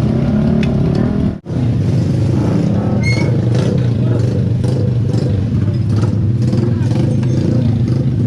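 Engine running steadily with a low, even hum, cut off for a split second about a second and a half in.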